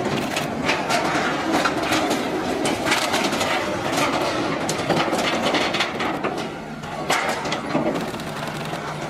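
Building being demolished by an excavator: continuous crunching and cracking of breaking material, with many sharp knocks and snaps.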